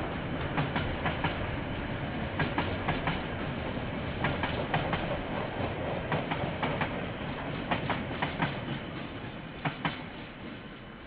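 KiwiRail train rolling past, its wheels clicking over a rail joint in quick pairs, a new group every second or two. The sound fades away near the end as the train moves off.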